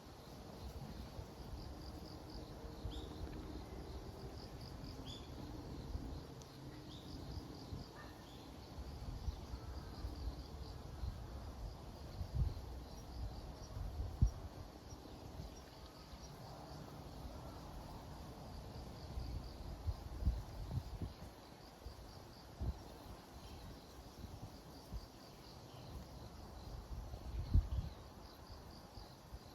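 Insects chirping in a steady pulsing trill, with wind buffeting the microphone in low gusts, the strongest about 12, 14, 20 and 27 seconds in.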